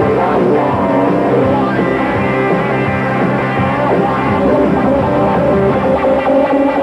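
Rock music with guitar, playing continuously at a steady loud level.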